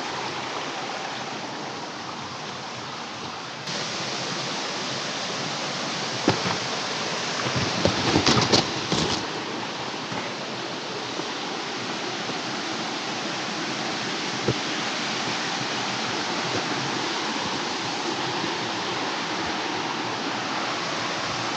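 Ashgill Beck's water rushing steadily over rocks and small cascades, getting brighter and fuller about four seconds in. A short cluster of knocks comes about eight seconds in, and a single click comes later.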